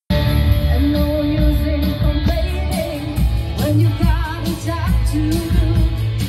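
Live band playing on an outdoor stage, heard from among the audience: a singer holding wavering notes over drums, bass and guitar.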